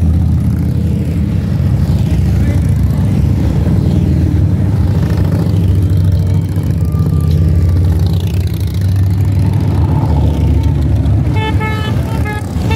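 A line of large cruiser and touring motorcycles riding past one after another, their engines running with a steady low drone. A horn sounds briefly near the end.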